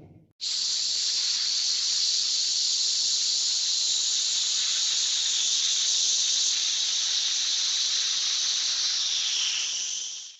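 Cartoon sound effect: a long, steady, high hiss lasting nearly ten seconds, sagging slightly lower just before it cuts off.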